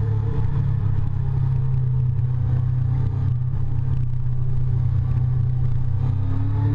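Yamaha FZ8's inline-four engine running at a steady mid-range note as the motorcycle holds speed through a bend, recorded on board.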